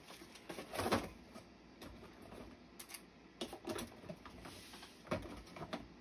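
Irregular light clicks and knocks of small plastic craft containers and tools being handled on a tabletop, the sharpest about a second in.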